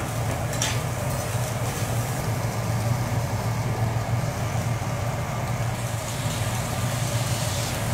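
Food sizzling on a teppanyaki steel griddle, an even hiss over a steady low hum, with a short click about half a second in.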